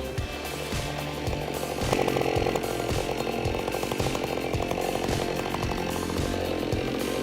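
Chainsaw cutting through wood, louder from about two seconds in, over background music with a steady beat.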